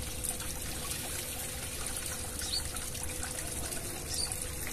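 Water trickling steadily in a koi pond.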